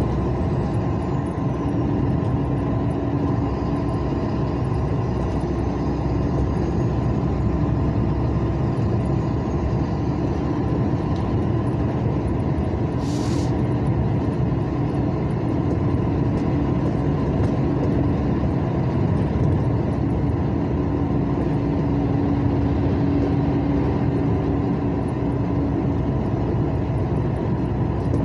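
A car driving steadily on a highway, heard from inside the cabin: a constant rumble of engine and tyre noise with a steady hum. There is a brief hiss about halfway through.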